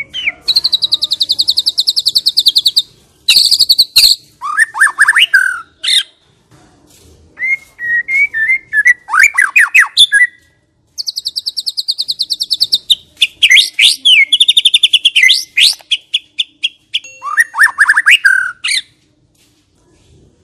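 White-rumped shama (murai batu) singing loud, varied phrases of rapid buzzy trills, sweeping whistles and sharp clicking notes, with short pauses between them. Two of the phrases are long buzzy trills.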